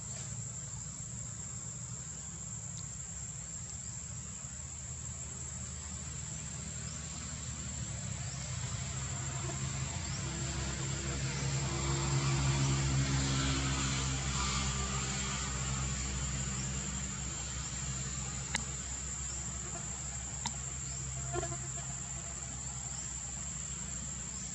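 Steady high-pitched insect drone in the forest canopy. A low hum swells louder around the middle and fades again, with a few sharp clicks near the end.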